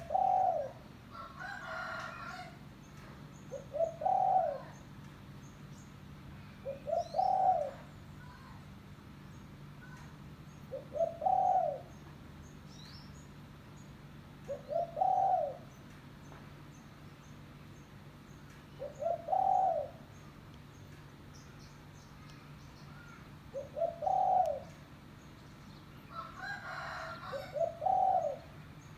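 Spotted dove (tekukur) cooing: the same short phrase repeated about every four seconds, eight times. A longer, rougher bird call sounds twice, near the start and near the end, with faint small-bird chirps in the background.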